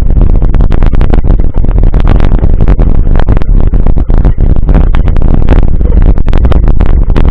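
Wind buffeting the microphone of a camera riding on a mountain bike, a loud constant rumble, with rapid irregular knocks and rattles from the ride.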